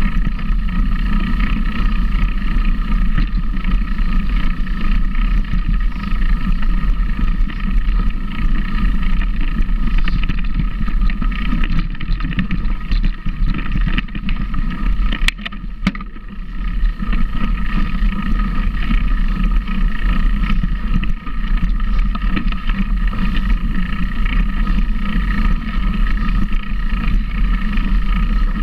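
Steady vehicle noise with a deep rumble, and a sharp click about fifteen seconds in.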